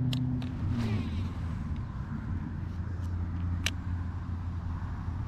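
Steady low rumble of road traffic. A vehicle's low hum drops in pitch and fades about a second in, and there are a few faint sharp clicks.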